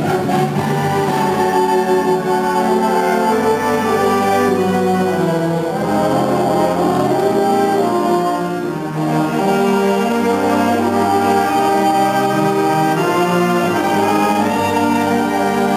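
High school concert band playing, with brass to the fore in held chords and moving lines; the sound eases briefly about halfway through.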